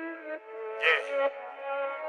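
Instrumental hip-hop beat playing: held string-like chords that shift every half second or so, with a short sharp accent just under a second in.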